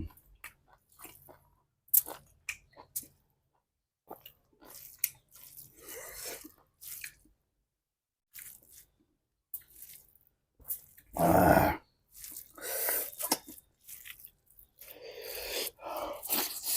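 A person chewing and eating food close to the microphone: irregular wet clicks, smacks and crunches, with a louder noisy burst about eleven seconds in.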